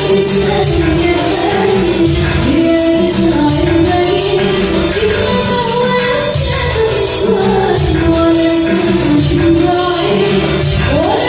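A woman singing a melodic song over instrumental backing with a steady percussion beat.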